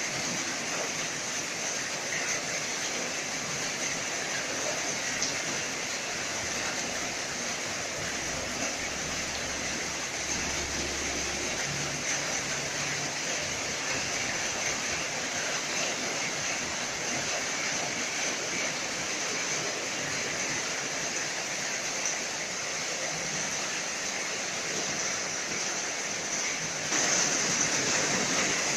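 Heavy tropical downpour: a steady hiss of rain falling on the road, roofs and leaves, a little louder near the end.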